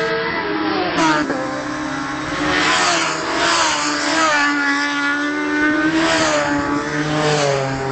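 Racing motorcycles running hard along a road race course, engine pitch rising and falling as they accelerate and change gear.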